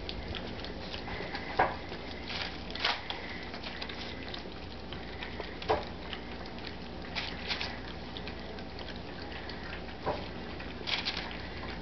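A litter of Old English Sheepdog puppies eating puppy mush together from a metal pan: continuous wet smacking, lapping and crunching, with a few louder clicks scattered through.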